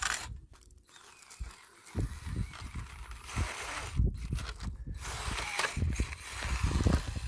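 1/24-scale Axial SCX24 RC crawler driving in stop-start bursts, with its brushless motor and gearbox whirring and its tyres crunching over rough ground. The first two seconds are quieter.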